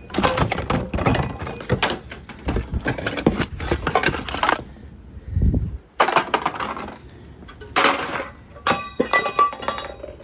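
Rummaging through a recycling bin: cardboard boxes and plastic packaging rustling and knocking, with scattered clinks and thuds. The noise stops briefly about halfway through for a single low thump, then picks up again in shorter bursts.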